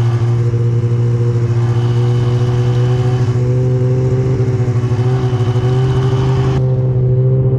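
Snowmobile's two-stroke engine running steadily at a low, even speed while towing a tube on a rope, its pitch rising only slightly midway.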